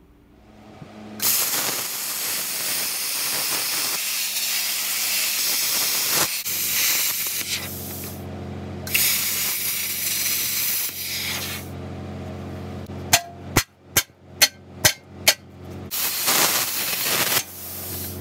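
Electric arc welding on gas-bottle steel: three long bursts of crackling hiss as the arc burns. Between the second and third bursts there is a quick run of six sharp metal taps.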